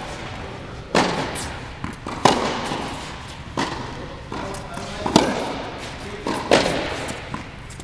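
Tennis ball hit back and forth in a baseline rally: sharp racket strikes about every one and a third seconds, each with a short echo off the walls of an indoor tennis hall.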